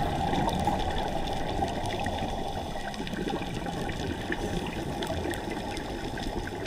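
Muffled underwater rushing noise picked up by a diving camera in its housing, with faint scattered clicks.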